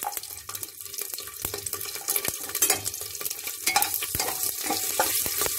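Garlic cloves, curry leaves and mustard seeds frying in hot oil in a pressure cooker: a steady sizzle with many small crackles and pops.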